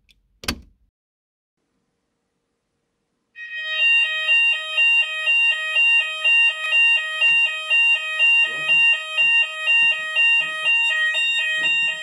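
A manual call point on a Hochiki ESP addressable fire alarm system is triggered with its test key, with a sharp click. About three seconds later the fire alarm sounders start, sounding a loud alternating two-tone alarm that repeats about twice a second.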